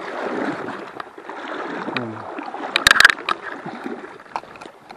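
River water rushing steadily, with a cluster of sharp knocks and clatters about three seconds in.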